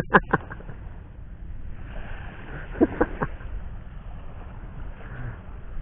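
Steady wind noise on the microphone with sea surf behind it, broken by a quick run of sharp knocks right at the start and another short run of knocks about three seconds in.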